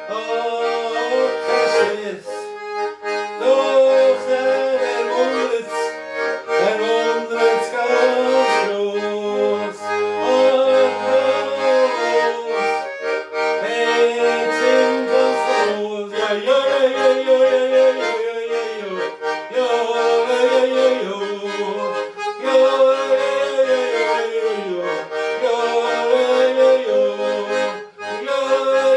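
Schwyzerörgeli (Swiss diatonic button accordion) playing a traditional Swiss folk tune: a running melody over held bass and chord notes.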